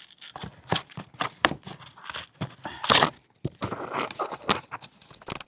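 Cardboard box being torn open by hand along its pull strip: irregular rips, scrapes and crinkles, the loudest about three seconds in.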